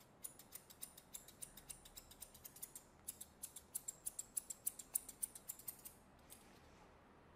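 Steel grooming scissors snipping a Yorkshire terrier's fringe: a rapid run of sharp, light snips, about six a second, with a short break about three seconds in, stopping near the end.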